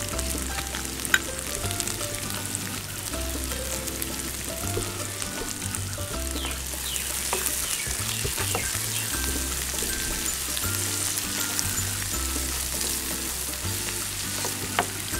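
Sliced onions and green peas sizzling in oil in a frying pan, stirred with a slotted spatula, over background music with a repeating bass line.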